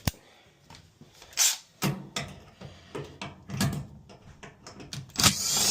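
Clicks, knocks and scraping of tools and metal dryer panel parts being handled while screws are taken out, with a louder rushing scrape near the end.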